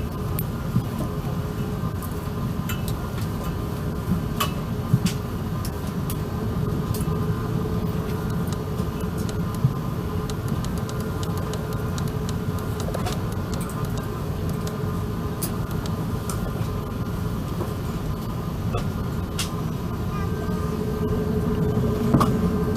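Airbus A380 cabin noise: a steady low rumble with a constant hum, from the Rolls-Royce Trent 970 engines and the cabin air system, with a few small clicks and rattles.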